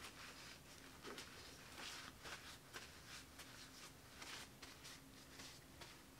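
Near silence: room tone with a faint steady hum and scattered soft ticks and rustles.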